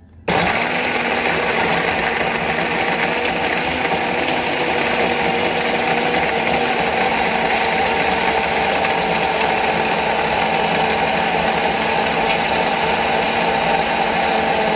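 Electric blender switching on abruptly and running steadily at full speed, rather noisy, blending a green smoothie with a few ice cubes in it.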